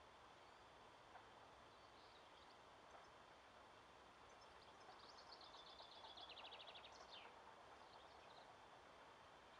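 Near silence with a faint steady hiss; about five seconds in, a small songbird sings one fast trill of rapid repeated notes that drifts downward and ends in a quick falling note.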